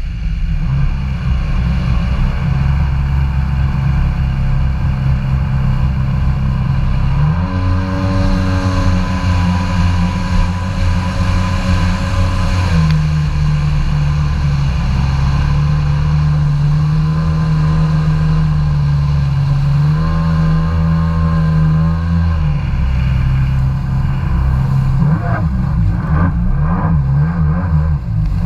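Kawasaki Ultra 150 jet ski's two-stroke three-cylinder engine running under way, its engine speed stepping up and down several times, then climbing near the end as the craft accelerates.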